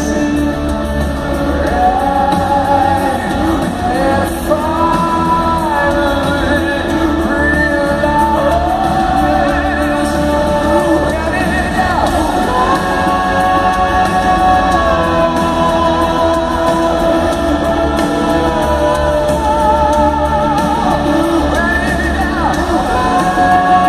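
Live rock band playing through an arena sound system, recorded from the crowd: a singer holds long, wavering notes over heavy bass, with the hall's echo around it.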